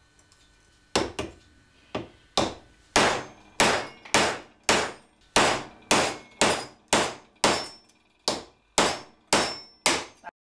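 Hammer blows on a steel drift rod driving the crimped-in crankshaft bearing out of a VéloSolex engine crankcase. There are about seventeen hard, ringing strikes, roughly two a second, starting about a second in.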